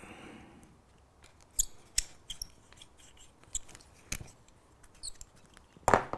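Scattered small clicks and scrapes of a hand-held pin-vice drill being twisted and withdrawn from a plastic model coupling. A louder knock comes near the end as the tool is set down on the table.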